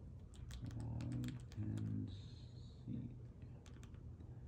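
TV remote buttons clicking in quick succession as letters are picked on an on-screen keyboard.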